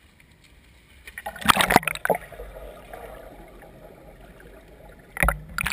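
Pool water splashing and sloshing against a waterproof camera at the surface of a swimming pool. A cluster of loud splashes comes about a second and a half in, then a duller, muffled stretch while the camera is underwater, and more sharp splashes near the end.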